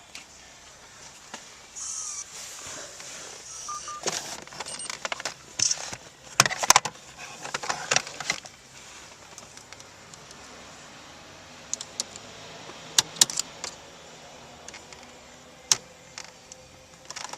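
Metal tools and parts being handled: a busy run of clinks and rattles for several seconds, then a few separate clicks.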